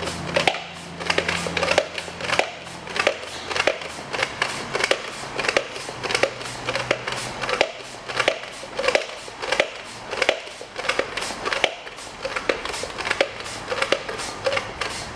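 Bicycle pump being worked in a steady run of strokes, inflating a BMX tyre's inner tube to about 100 psi.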